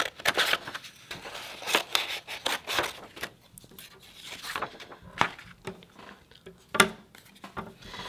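Scissors snipping through black construction paper, with a run of short crisp cuts. The cuts come thick in the first few seconds, then fewer and lighter with some paper rustle.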